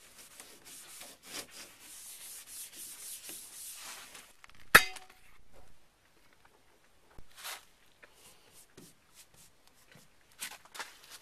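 Paste wax being rubbed onto a pontoon mold with an applicator pad: quick repeated rubbing strokes for about four seconds. Then one sharp, loud clank with a short ring, followed by a few faint scattered rubs and handling noises.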